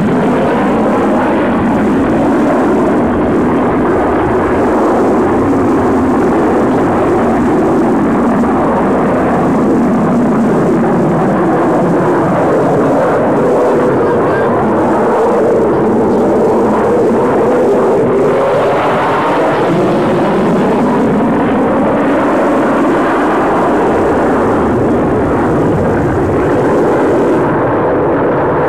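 Loud, steady jet noise from a Dassault Rafale fighter's twin Snecma M88 engines during a display pass. The tone sweeps slowly around the middle.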